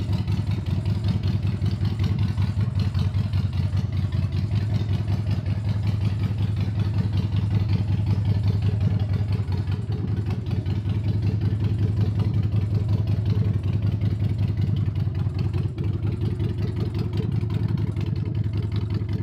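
Harley-Davidson Road King's V-twin engine idling steadily with an even, fast-pulsing exhaust note.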